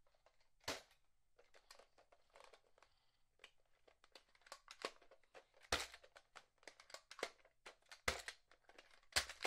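Plastic clicks and clacks from a toy Nerf blaster being handled, with one louder clack about a second in and three more in the second half.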